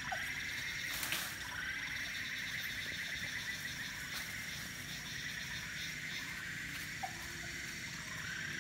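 Steady chorus of crickets and other insects trilling in dense vegetation, with two short chirps and one faint click about a second in.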